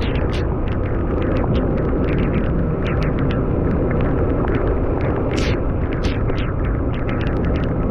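Heavy rain falling: a steady rush scattered with many sharp, close drop hits.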